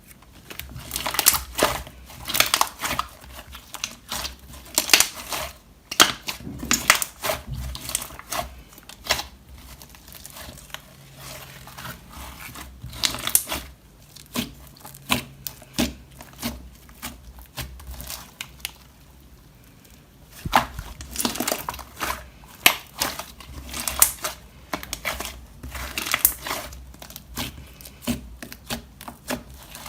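Slime being squeezed, stretched and folded by hand, giving irregular sticky crackling pops and clicks. It goes quieter and sparser for a stretch in the middle, then picks up again.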